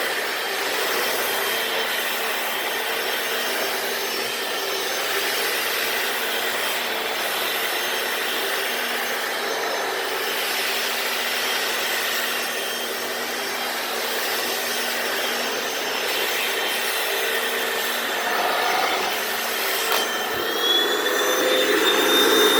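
Hoover FloorMate wet floor cleaner running: a steady vacuum-motor whine over the rub of its spinning brushes scrubbing the floor. Near the end a new tone rises in pitch and the machine gets a little louder as its dirty-water tank fills up.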